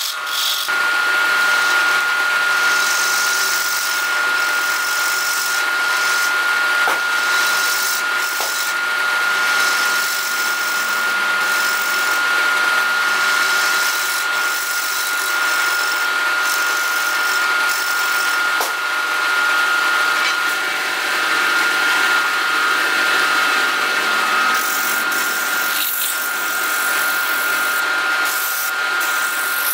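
A wood lathe running steadily with a high motor whine, while a hand-held turning tool scrapes the spinning wood with a continuous rough hiss. Near the end, sandpaper is pressed against the turning wood.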